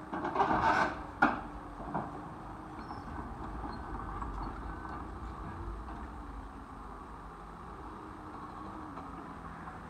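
Tracked excavator's demolition grab crunching into the wrecked building structure, with a sharp bang about a second in and a smaller knock a moment later, then the excavator's diesel engine running steadily as the arm swings away.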